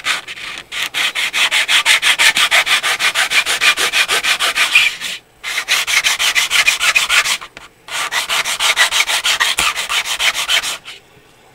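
A plastic model-kit wall part is scrubbed quickly back and forth on a sheet of sandpaper laid flat, a fast even rasping that takes material off the part. It comes in three runs with brief pauses between them and stops shortly before the end.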